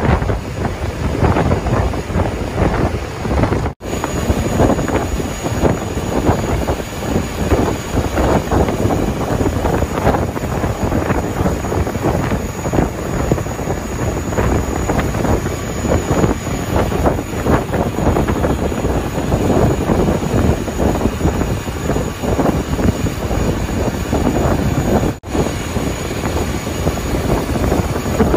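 Wind buffeting the microphone on a moving boat, over the rush of water and the boat's engine. The noise drops out for a moment twice, about 4 seconds in and near the end, where the footage cuts.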